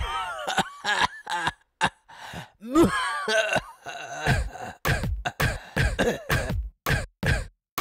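Coughs, throat-clearing and groaning voice sounds cut into a hip-hop track. About halfway through, a steady run of drum hits with deep kicks comes in.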